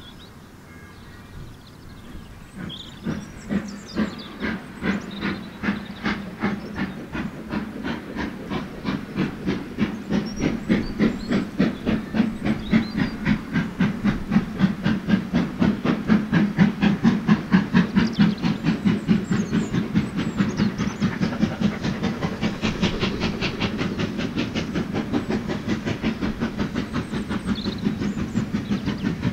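Steam locomotive working hard as it pulls a train away. Its chuffing exhaust beats start a couple of seconds in, then come faster and louder as it accelerates and draws closer.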